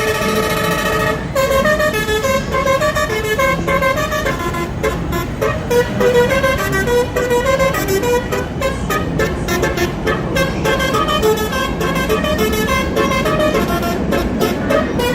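Train horn sounding one held note, then tooting a fast run of short notes that jump up and down in pitch like a tune.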